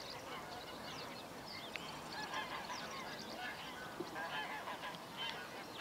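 Faint birdsong and calls: many short calls overlapping, scattered throughout.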